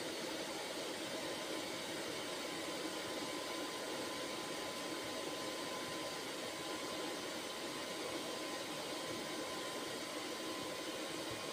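Steady hiss. A faint, steady 1 kHz test tone runs through it from a few seconds in: the modulation tone of the test signal fed into the CB radio.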